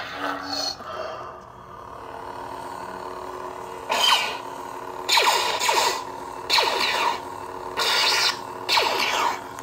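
Lightsaber soundboard in a Martin Beyer chassis humming steadily through its small speaker, then from about four seconds in playing five loud effect sounds in quick succession, each with a falling whine.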